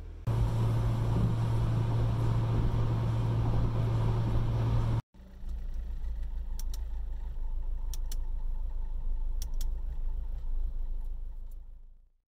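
Inside a moving Acura Integra: a steady low engine hum with road noise, cut off briefly about five seconds in. It comes back quieter with a few sharp clicks and fades out near the end.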